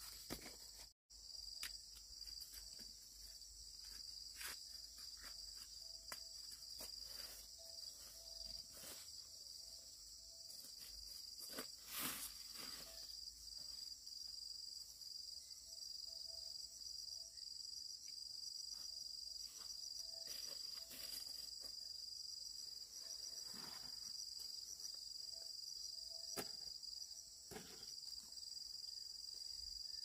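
Insects chirring in a steady, high, unbroken drone, with a few scattered soft clicks and knocks, the loudest about twelve seconds in.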